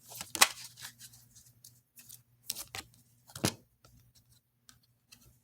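Tarot cards being handled and drawn from the deck: a few sharp, irregular card snaps and flicks with quiet between them.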